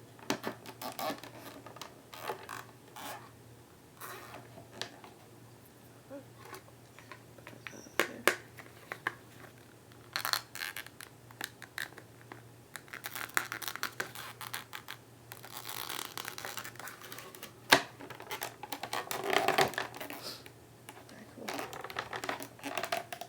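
Plastic figurine parts and packaging being handled: scattered sharp clicks and taps, with several longer stretches of rustling and scraping.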